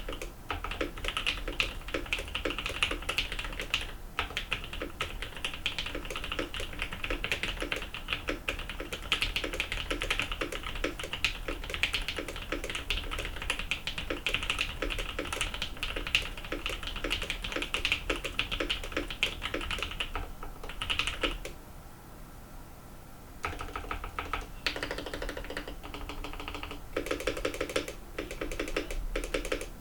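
Fast typing on an M-One custom mechanical keyboard fitted with Durock T1 Dark Amber switches and blank PBT keycaps: a dense run of key clacks, with a pause of about two seconds past the two-thirds mark before the typing resumes.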